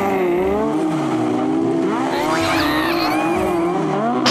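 Banger-racing car engines revving hard, their pitch rising and falling as the cars tangle and one spins off.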